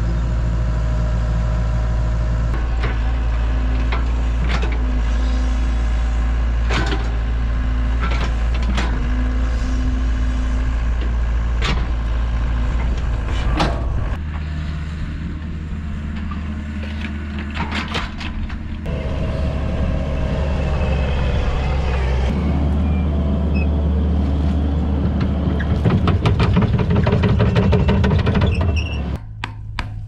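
Heavy equipment engine running steadily, with scattered sharp clanks and knocks. The sound changes abruptly about halfway through, again a little later, and drops off near the end.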